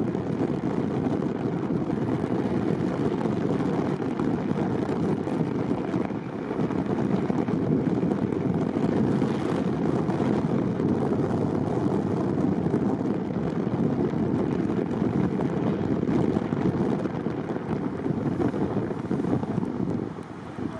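Steady road and wind noise of a car being driven, with no speech. It eases off briefly near the end.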